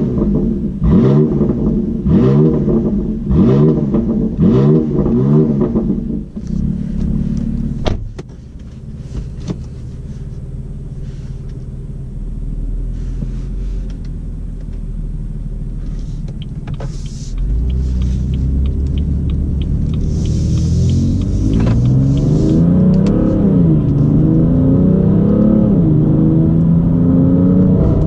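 BMW M3 F80's twin-turbo inline-six with an M Performance exhaust, heard from inside the cabin: a quick series of throttle blips while stationary, then settling to idle with a sharp click about eight seconds in. In the second half the car pulls away and accelerates, the engine note rising and dipping at a gear change.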